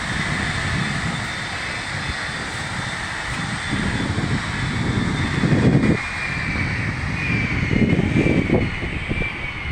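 Steady machine-like drone with a thin high whine, swelling twice into louder low rumbling surges, about four and eight seconds in.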